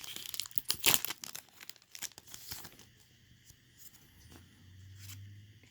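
Trading-card booster pack wrapper being torn open and crinkled: dense crackling for about three seconds, then a few lighter clicks and rustles as the cards are handled.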